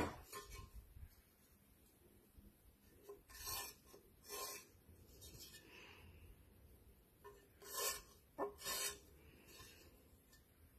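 A few short, faint scraping rubs, two of them close together midway and two more near the end, from the brush and ceramic ware being worked by hand while painting a glazed ceramic plate.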